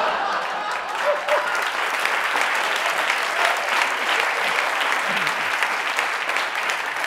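Studio audience applauding steadily, with a few voices mixed into the crowd.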